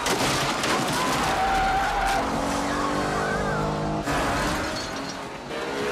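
A car smashing through stacks of wooden crates, with clattering debris and squealing tyres. From about two seconds in, its engine is heard revving hard as it pulls away.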